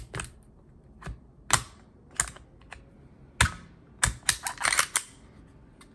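Sharp clicks and clacks of a semi-automatic pistol being handled, its slide worked by hand. The clicks are scattered, then come as a quick cluster of several about four seconds in.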